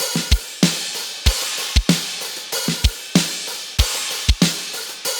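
Background music with a steady drum beat: kick drum strokes about every half second under cymbals and snare.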